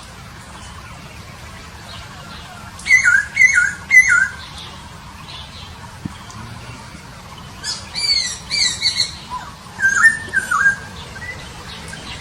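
Poksay Papua songbird singing in two bursts: first three quick, loud, downward-slurred whistles, then about four seconds later a longer run of rapid slurred notes, some higher and some lower.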